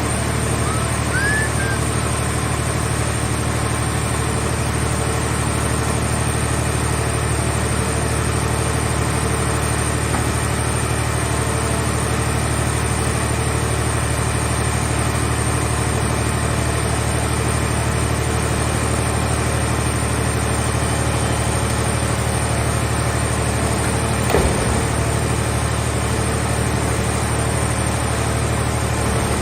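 Engine of a towable scrap car-shell baler running steadily at a constant speed, with one brief knock about five seconds before the end.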